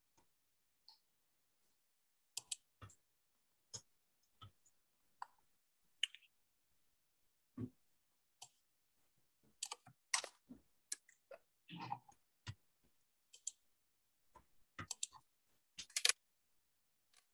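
Faint, irregular clicks of laptop keys being typed, scattered at first and coming faster in the second half.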